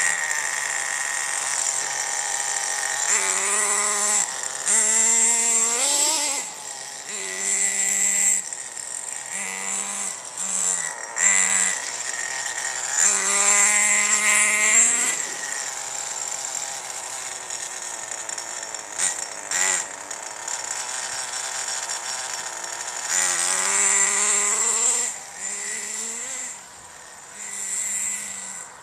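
Radio-controlled car's small motor running and revving as it is driven, its pitch climbing in repeated runs, three of them strongest, with a steady high whine underneath.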